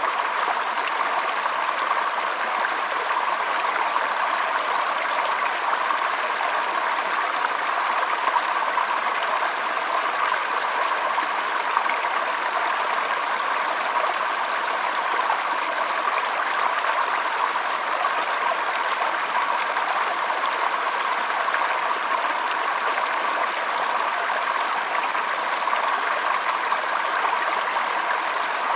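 Flowing water running steadily: an even, unbroken rush with no pauses or changes.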